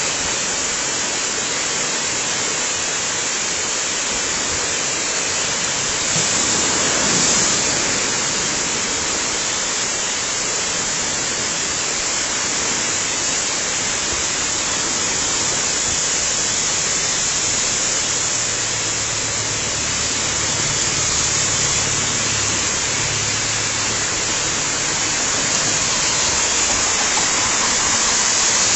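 Waterfall: a steady rush of falling water, swelling briefly about seven seconds in, with a faint low hum underneath in the second half.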